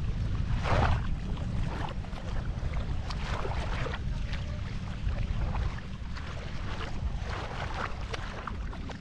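Water splashing and lapping close to a small boat moving slowly across a calm lagoon, in irregular surges, over a steady rumble of wind on the microphone.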